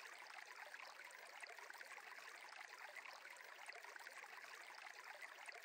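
Near silence, with a faint, steady stream trickling softly in the background.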